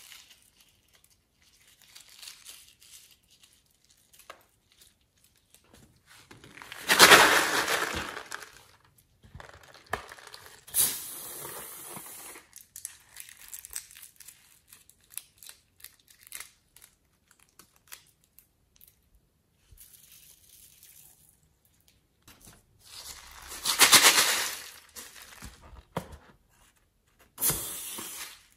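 Hands squishing and pressing glossy slime strewn with sprinkles and glitter, and handling filler-stuffed rubber balloons, with soft crinkling. Two louder squelching rushes of a second or two stand out, about a quarter of the way in and again toward the end.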